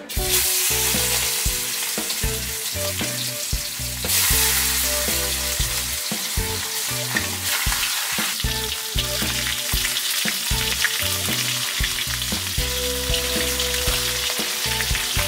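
Whole Probarbus jullieni fish frying in hot oil in a large wok: a loud, steady sizzle that starts suddenly and grows louder about four seconds in.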